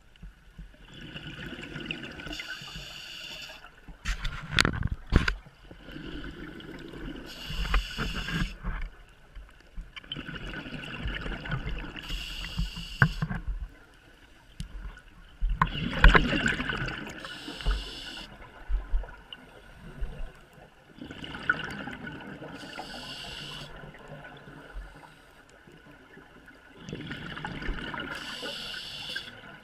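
Scuba diver breathing through a regulator underwater: a hiss and bubbling that repeat about every five seconds, with a few sharp knocks between them.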